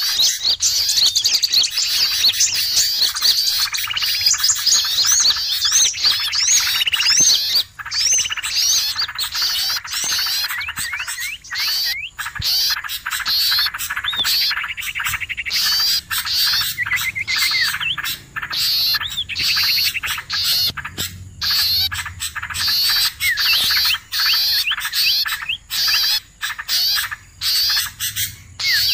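Bird-lure recording of a noisy chorus of many small songbirds chirping and twittering without pause, with quick rising and falling whistles overlapping one another.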